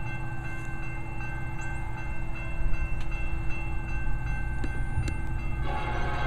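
Grade-crossing warning bell ringing as the gate arm comes down, over a low rumble. About five and a half seconds in, the multi-note air horn of the approaching lead Union Pacific SD70M locomotive starts sounding and holds.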